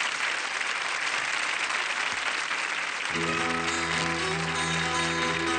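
Studio audience applauding. About three seconds in, instrumental music begins with held chords under the continuing applause: the intro of the song.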